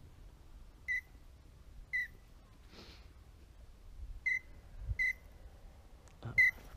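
Short whistled duck calls: five single notes at the same pitch, about a second apart, the last the loudest, with a low knock beside it.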